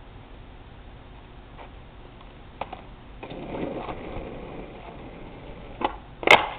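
Skateboard on asphalt: a couple of light knocks as the board is stepped on, then the wheels rolling with a rough rumble after a push. Near the end a sharp tail pop, and half a second later the board slaps down hard on the landing, the loudest sound.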